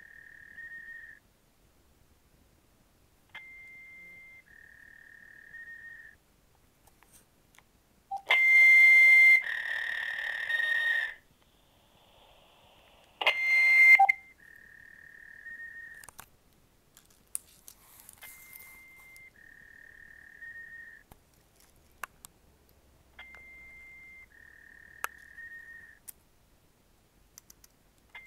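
Electronic beeps in a recorded voicemail message: a higher tone then a slightly lower tone, the pair repeating about every five seconds in a loop. Between about 8 and 14 seconds in come two much louder, harsher bursts of tone and noise.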